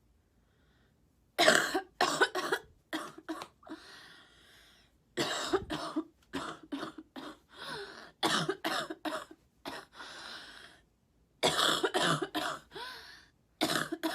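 A sick woman coughing in repeated fits, starting about a second and a half in: each fit is a quick run of several harsh coughs, with short pauses between fits.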